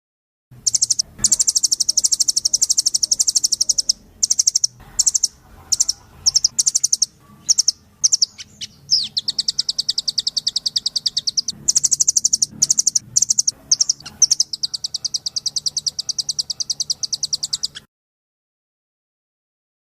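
Masteran tutoring track for songbirds: rapid, high-pitched chirping trills in repeated bursts, each starting and stopping abruptly with short gaps between, cutting off suddenly near the end.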